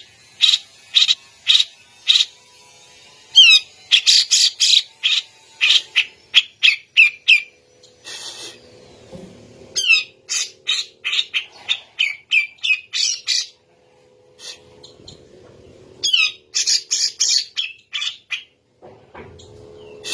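Cucak jenggot (grey-cheeked bulbul) singing loudly in bouts: sharp repeated notes about two a second, then fast runs of downward-slurred whistles, with short pauses between bouts.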